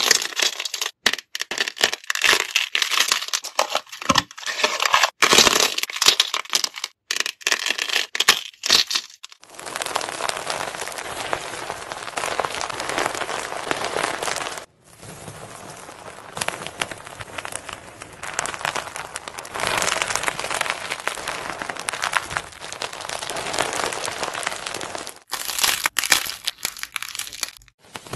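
Slime and a squishy toy being squeezed by hand. For the first nine seconds or so, a sweet-potato-shaped squishy is pulled apart, with sharp separate clicks and pops. Then comes a steady crackly squishing as a fluffy white slime is kneaded, and crinkling near the end as gold leaf on a slime is pressed.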